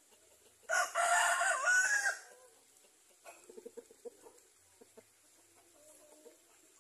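A rooster crows once, a harsh call about a second and a half long that rises in pitch at its end, near the start. About a second later come a run of short, low chicken clucks, and a faint low call near the end.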